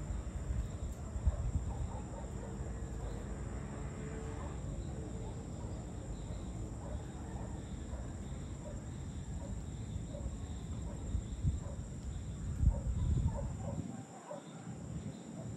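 Dusk outdoor ambience: scattered bird chirps and calls over a steady high insect drone and a low rumble, with a couple of louder bumps, one about a second in and one near the end.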